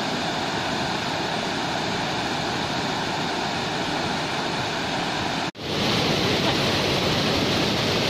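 Water of a rocky waterfall cascade rushing in a steady noise. About five and a half seconds in it cuts out for an instant and comes back louder and brighter.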